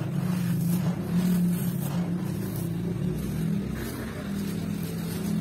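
Hands crumbling and grinding dry sand-and-cement clumps, with faint gritty crunching and trickling grains. Under it, and louder, a steady low mechanical hum that wavers a little in strength.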